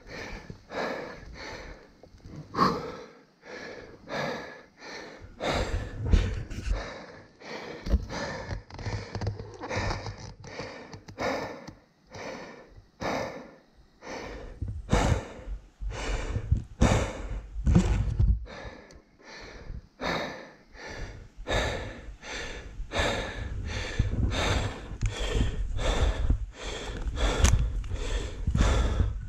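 A person panting hard close to the microphone, quick rasping breaths about two a second, out of breath from the effort of getting a dirt bike up a rough trail. Dull low rumbling comes and goes under the breathing.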